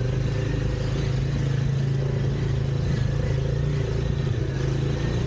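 Tuk-tuk engine running steadily as the vehicle drives along, a constant low drone.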